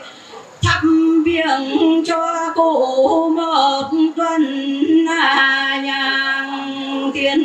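Vietnamese funeral music: a slow, sustained melody over a held tone, with a few sharp drum strikes. It comes back in about half a second in after a brief lull.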